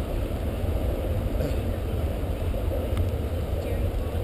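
Steady, fluctuating low rumble of wind buffeting the camera microphone, with faint distant sounds of play.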